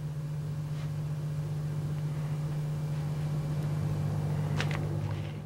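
Steady low hum, with a faint tick about a second in and two quick clicks near the end.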